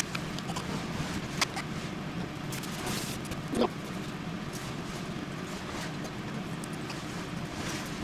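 Steady low mechanical hum with a few light, sharp clicks and taps of utensils and plastic bento boxes being handled while lunch boxes are packed, and a short squeak about three and a half seconds in.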